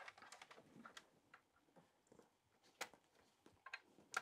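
Near silence with a few faint, scattered clicks from cables being plugged in at a mesh wifi router.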